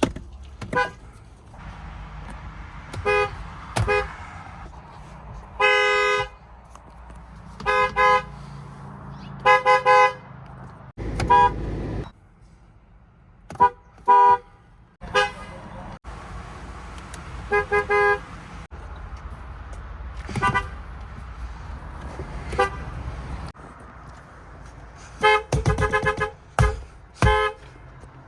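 Car horns of Fiat Chrysler (FCA) vehicles sounding one car after another. Mostly short honks of well under a second, some in quick pairs, with a rapid run of toots near the end.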